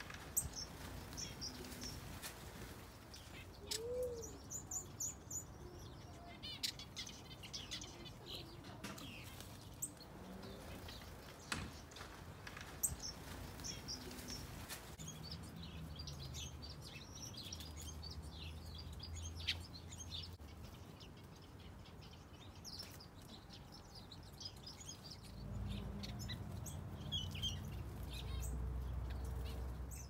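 Small cage birds in an aviary chirping and twittering: many short, high chirps and trills, with scattered sharp clicks. A low rumble comes in about 25 seconds in.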